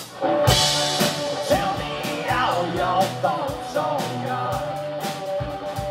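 Live rock band playing: after a brief lull the drums and guitars come back in loud just after the start, with a steady drum beat and a lead melody that bends in pitch.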